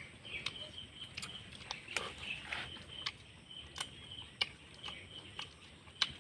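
Mouth noises of someone eating chicken: irregular wet smacking clicks, about one or two a second, with repeated chirping in the background.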